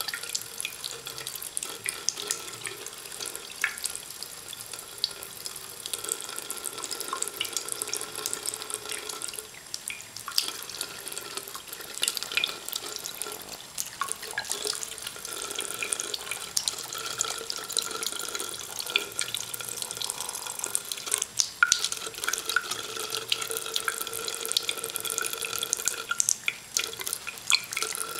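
A thin stream of tap water running into a porcelain sink, its steady trickle broken by many small irregular splashes and drips as a cat laps from the stream.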